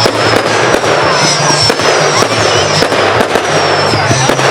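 Fireworks display: a dense, continuous run of bangs and crackling, with high whistling tones that drift slightly down in pitch.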